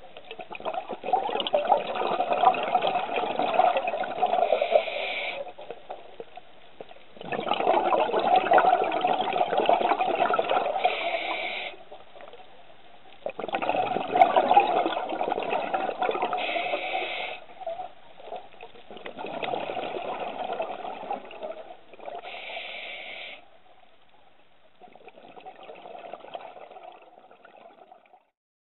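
Scuba diver's exhaled breath bubbling out of the regulator, five long bubbling rushes about six seconds apart with quiet gaps for each inhale between them; the last one is fainter.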